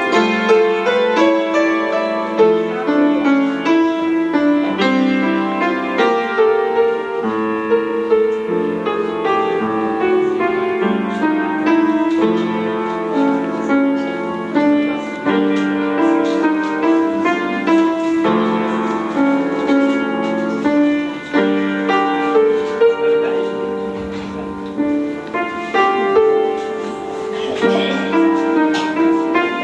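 Instrumental background music led by piano, a steady flow of notes throughout.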